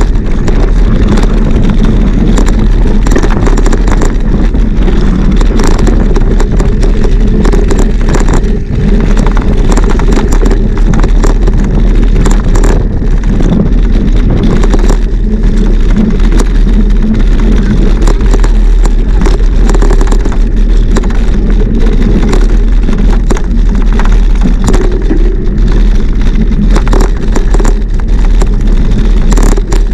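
Mountain bike being ridden over rough ground, heard through a bike-mounted action camera: loud, steady wind rumble on the microphone, with constant rattling and crackling from the tyres and frame.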